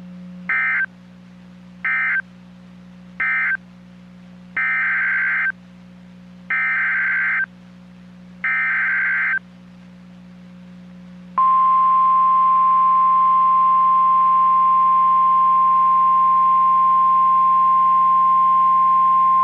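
NOAA Weather Radio alert tones: three short SAME digital data bursts closing the previous message, then three longer screeching SAME header bursts announcing the next alert, a flood warning. About 11 seconds in, the steady 1050 Hz warning alarm tone starts and holds, all over a low radio hum.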